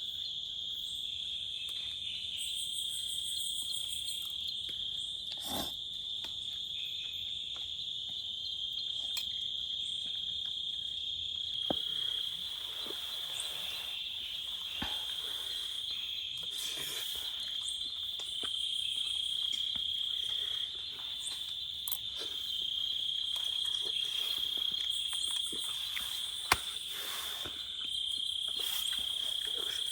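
Insects trilling in a steady, continuous high-pitched chorus, louder in stretches through the second half. Scattered faint ticks and one sharp click near the end.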